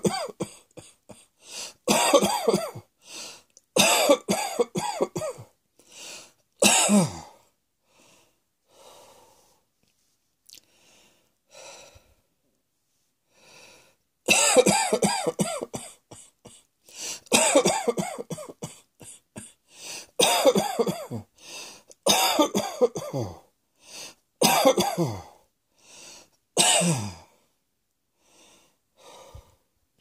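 A person coughing in repeated fits of several harsh coughs each, with a lull of about six seconds a third of the way through before the fits start again.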